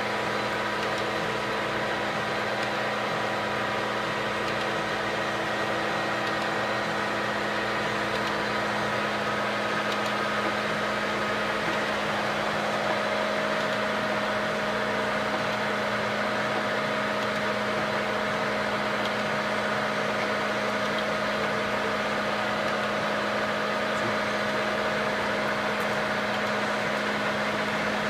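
H.E.S. 20-inch metal lathe running with no cut: a steady low hum with several faint whining gear tones over it.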